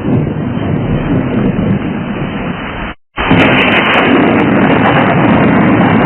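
Thunder rumbling on and on, dropping out for a moment about halfway through, then coming back louder and harsher with crackling.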